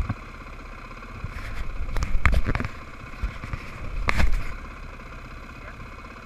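Dirt bike engines idling, with two louder, rougher bursts about two and four seconds in.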